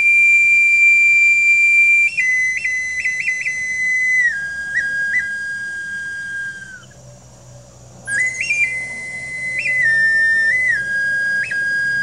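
A small hand-held wind instrument played solo: one long high note held for about two seconds, then short notes with quick upward flicks, stepping down lower. The tune breaks off about seven seconds in and starts again a second later with a rising scoop.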